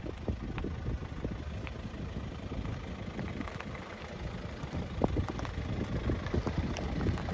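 Off-road 4x4 engine running at low revs as the vehicle crawls through a rocky section, with scattered knocks and clicks and a sharper knock about five seconds in.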